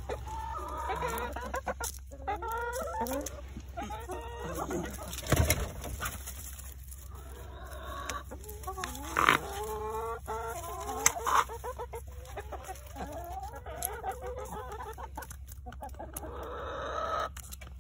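Chickens clucking almost without pause in short, rapid, falling calls. A few sharp knocks stand out as the loudest sounds, about five, nine and eleven seconds in.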